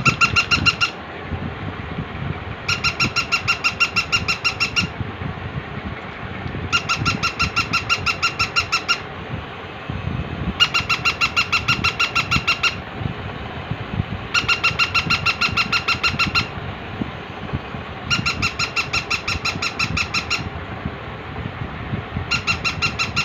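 Battery-operated plush jumping puppy toy running: its motor and gears make a steady rattle, and every four seconds or so its sound chip gives a burst of rapid, high electronic yapping lasting about two seconds.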